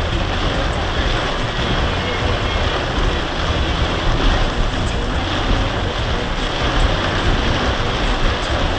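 Storm wind blowing steadily, buffeting the microphone with uneven low rumbling.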